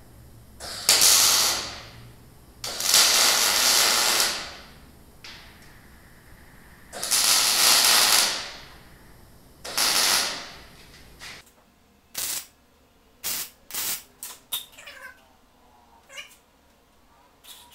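MIG welder laying four short tack welds on steel, each a hissing stretch of a second or so, the last about ten seconds in. A run of short sharp clicks follows near the end.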